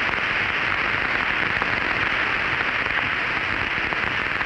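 Steady hiss of radio static on an open air-to-ground voice channel, with a few faint clicks.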